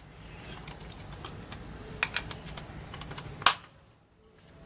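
Light, irregular clicks and taps of small parts being handled during work on a van's light wiring, with one sharper click about three and a half seconds in.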